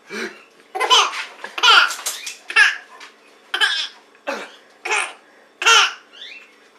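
A baby laughing in repeated short bursts, set off by a woman's hiccups, which sound among the bursts.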